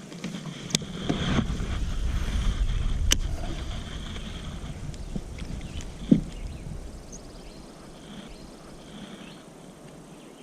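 Kayak fishing handling noise: a low rumble for the first half, two sharp clicks about one and three seconds in, and a short knock about six seconds in.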